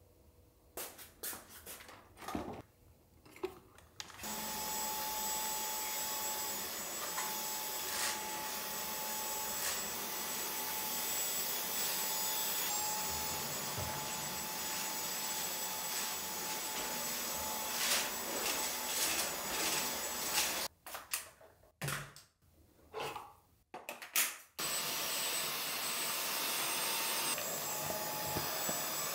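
Dyson Digital Slim cordless stick vacuum running with a steady whine over a few knocks at the start. It stops about twenty seconds in, gives a few short bursts, then runs steadily again.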